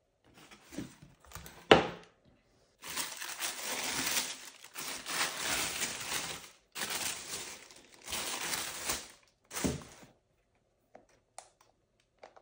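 Cardboard shoebox being opened and the tissue paper inside rustled and crinkled by hand in several long stretches. A sharp knock of the box about two seconds in, and a single thump near the end.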